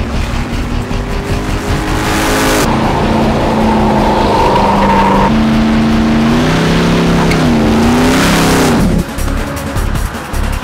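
A Camaro's engine revving hard, rising and falling in pitch, with tires squealing and spinning in a burnout, over background music.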